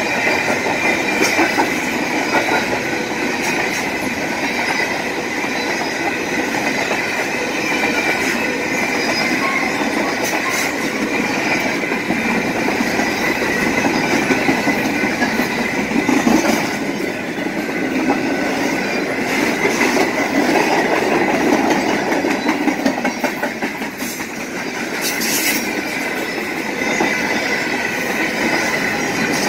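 Canadian Pacific freight train of covered hopper and tank cars rolling past at a grade crossing, with wheels clattering over the rail joints and a steady high wheel squeal.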